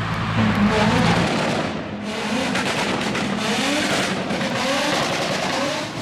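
Tuned car engine revving up and down several times, with rapid crackles and pops from the exhaust between the revs.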